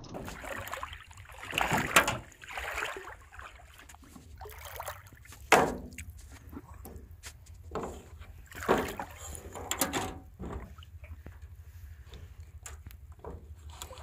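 Several sharp knocks against the hull of a small metal boat, with water sloshing, over a low steady rumble; the loudest knocks come about two seconds in and just after five seconds.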